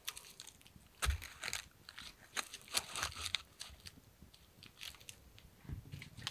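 Firewood logs being handled and stacked against one another: dull wooden knocks about a second in and near the end, with crunchy scraping and rustling between.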